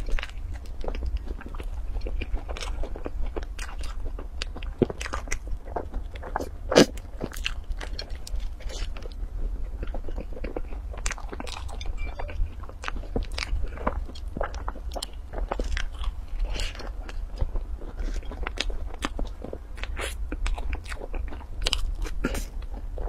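A person biting and chewing crisp, sugar-crusted pastry buns: a dense run of short crackly crunches and mouth sounds, with one louder crunch about seven seconds in.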